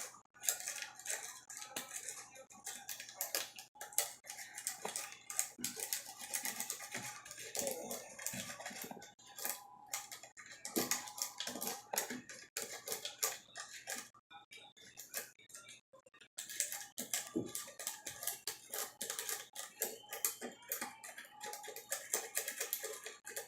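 Metal lock rake scraping and clicking rapidly and irregularly against the pins inside a six-pin Schlage deadbolt cylinder with security pins, as the lock is raked under tension. There are short pauses about four seconds in and again around the middle.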